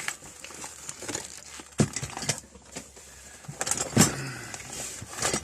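Metal hand tools being handled and set down: a few sharp clinks and knocks, the loudest about four seconds in, between quieter rustling.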